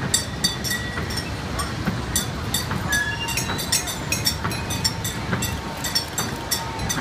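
Kiddie ride's small boats and trains rolling round on their circular track: a steady low rumble with rapid, irregular clicks and clacks from the running gear.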